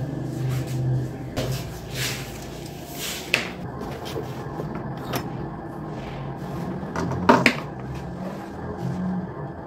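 Handling noises of a blood pressure cuff being wrapped and fastened around an upper arm: rustles and a few sharp knocks and rips, the loudest near the end, over a steady low hum.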